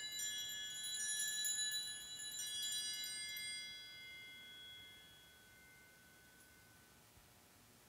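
Altar bells (Sanctus bells) rung at the elevation of the chalice after the consecration: a cluster of small bright bells shaken in a few strokes, then ringing out and fading away over several seconds.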